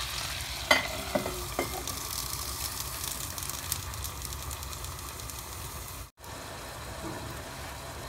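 Shrimp frying in butter in a pan, a steady sizzle. A few sharp clinks in the first two seconds as a metal lid is set on the pan, and the sizzle carries on under the lid.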